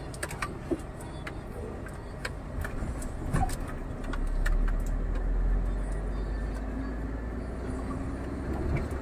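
Scania R440 truck's diesel engine running, heard from inside the cab: a deep rumble that grows louder about four seconds in, with scattered light clicks and rattles over it.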